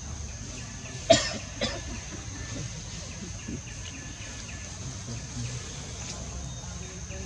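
Two short, sharp cough-like sounds about a second in, half a second apart, the first the louder. Under them runs a steady high insect drone.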